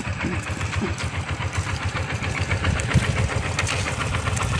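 A small engine running steadily at an even speed, its firing heard as a fast, regular pulsing.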